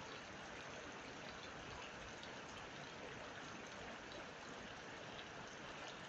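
Steady rain falling onto puddles and waterlogged ground, an even hiss of many small drops.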